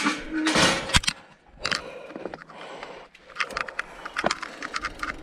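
Mountain bike rattling and clicking as it rides over a rough dirt trail, with sharp knocks throughout and a brief rush of noise about half a second in.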